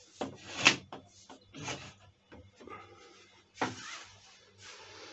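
A few short knocks and clatters of things being moved about, with a rustle of clothing near the end.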